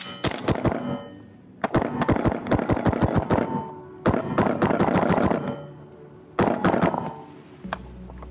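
AR-pattern gas blowback airsoft rifle firing four rapid strings of sharp shots, the two middle strings the longest.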